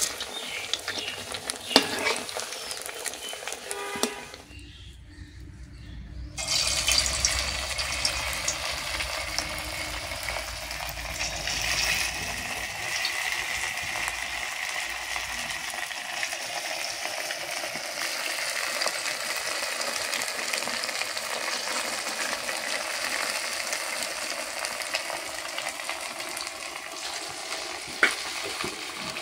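Rice vadas deep-frying in hot oil: a steady sizzle. A few sharp clicks come in the first seconds, and the sizzle drops out briefly about five seconds in, then returns and holds steady, with one more click near the end.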